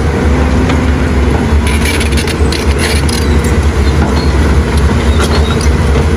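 A road roller's heavy engine running loud and steady: a deep low hum under a hiss, with a faint steady tone. It starts abruptly and cuts off abruptly.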